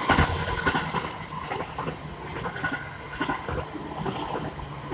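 JR 651 series electric limited-express train running past close by: the rumble of its wheels on the rails with a run of irregular clicks and knocks, loudest right at the start.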